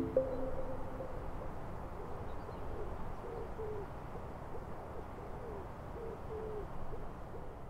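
Quiet closing passage of background music fading out: soft, breathy notes with short pitch slides, about one a second, over a low hum.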